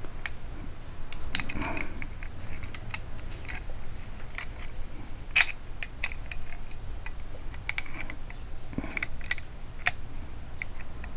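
Small metal lock parts clicking and tapping irregularly as the cover is worked onto a car trunk lock cylinder loaded with tumbler springs, with one sharper click about halfway through.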